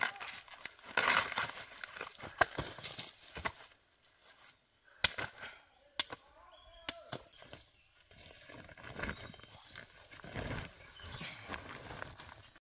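A machete chopping at bamboo shoots and their husks being torn away, giving a series of sharp knocks and cracks in the first half. It is followed by quieter rustling of dry bamboo leaves and a sack as the shoots are gathered up.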